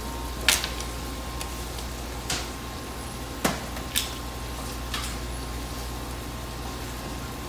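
A frying pan of shredded beef, peppers and marinara cooking on an induction hob: about five sharp pops and clicks at irregular intervals over a steady low hum and a faint high tone.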